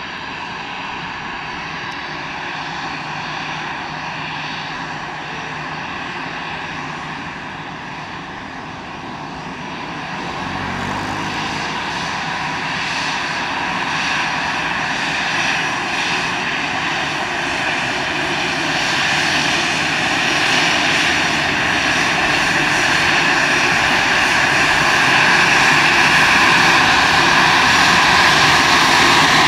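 Airliner's engines, a steady rushing whine that grows steadily louder from about a third of the way in to the end.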